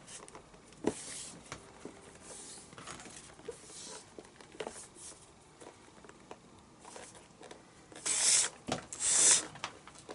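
Blue lace being pulled through the lacing holes of a leather baseball glove's fingertips: short rasping drags and small rustles and ticks, with two longer, louder pulls near the end.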